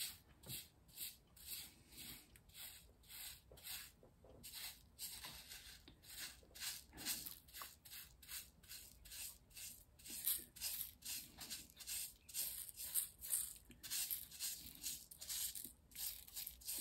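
Makeup brush sweeping loose, unglued gravel scenery off a diorama base. The faint, bristly strokes come about two a second.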